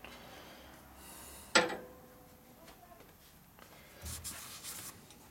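A single sharp metallic clink with a short ring, from a metal part set down, about a second and a half in. Near the end a cloth rag rubs around inside an aluminium shovelhead cylinder head's combustion chamber, wiping off the just-lapped valve seat.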